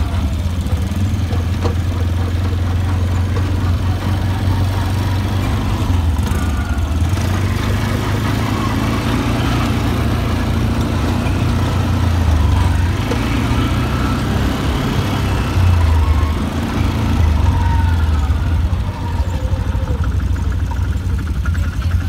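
Quad bike engine running steadily as it rides over a dirt track, its low drone rising and easing a little now and then.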